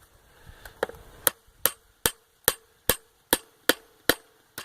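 A steady run of evenly spaced sharp taps, about two and a half a second, over a faint steady hum.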